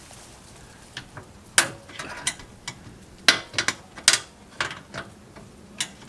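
Sharp, irregular metal clicks and clanks, about a dozen, as a spring clip is worked off an RV awning arm.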